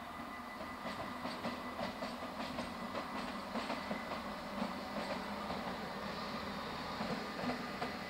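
A DB Schenker diesel shunter and electric locomotive rolling slowly through a rail yard, their wheels clicking irregularly, several times a second, over rail joints and points. The running noise grows louder about a second in.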